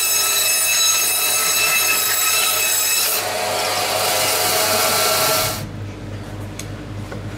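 Butcher's meat band saw running and sawing through pork loin and bone: a loud, steady whine made of many high tones. The sound changes about three seconds in, then cuts off abruptly about five and a half seconds in, leaving a low hum and a few light clicks.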